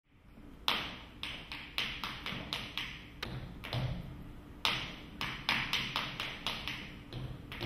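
Dance shoes striking a stage floor in footwork: sharp heel and toe taps in short irregular runs with pauses between, each strike ringing briefly in the hall.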